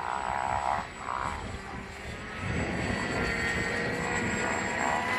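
Electric motor and propeller of an AXN Floater RC plane whining steadily in flight, the pitch drifting slowly upward. Gusty wind rumbles on the microphone, stronger from about halfway through.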